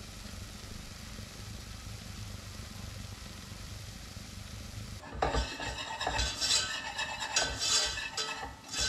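Butter-and-flour roux sizzling faintly in a stainless steel saucepan as it cooks on low heat. About five seconds in, a wire whisk starts scraping and clinking against the pan as the roux is stirred.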